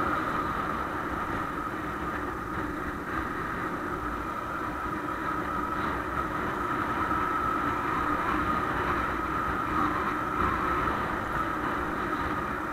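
Honda XR150L single-cylinder motorcycle engine running at a steady cruising speed, with wind rumble on the camera's microphone.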